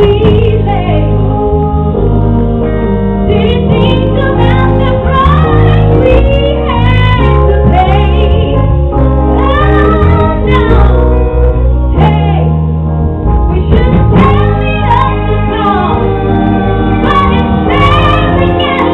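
A live band playing a song with a singer carrying the melody over bass, keyboard chords and drums, loud and continuous.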